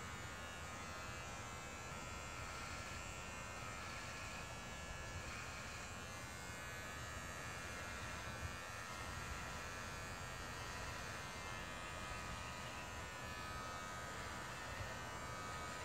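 Electric hair clippers buzzing steadily while shaving a man's head.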